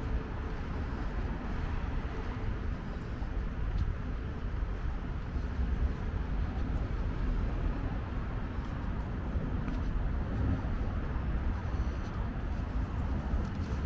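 Steady hum of city traffic on a wide multi-lane road.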